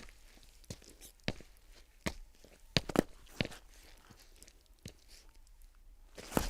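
Footsteps: single sharp steps, unevenly spaced at about one every half second to second, then dying away for the last second or so.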